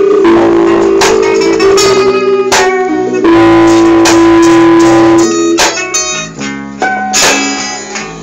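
Live band music with guitars, strummed chords and long held notes ringing; the playing turns sparser and quieter in the last few seconds.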